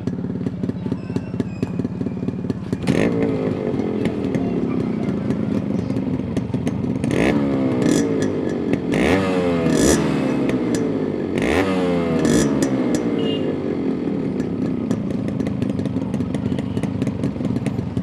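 Yamaha RX two-stroke single-cylinder motorcycle engine idling, then revved with quick throttle blips: a short rev about three seconds in, then several sharp rises in pitch from about seven to thirteen seconds, each falling back, before it settles to a steady idle again.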